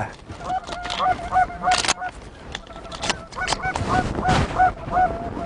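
A flock of Canada geese honking in flight overhead: many short, repeated honks overlapping one another.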